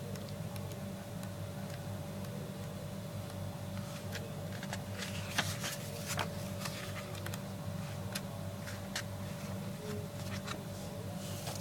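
Scattered small clicks and rustles of items and packaging being handled during an unboxing, busiest from about four seconds in, over a steady low electrical hum.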